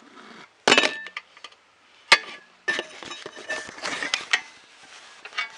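3D printer kit parts knocking and clinking as they are handled and fitted together: a sharp knock, another a little over a second later, then a run of small clinks and rattles, and a last knock near the end.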